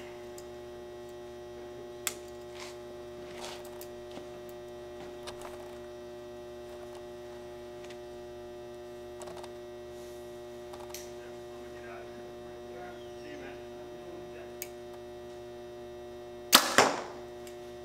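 Steady electrical hum with a few faint clicks as an arrow is nocked and the compound bow drawn, then near the end one loud, sharp snap of the Hoyt Ventum Pro 33 compound bow (71 lb draw weight) firing a 445-grain arrow through a chronograph.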